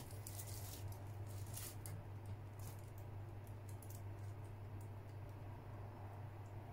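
Faint crinkling and clicking of a clear plastic bread wrapper being handled, mostly in the first half, over a steady low electrical hum.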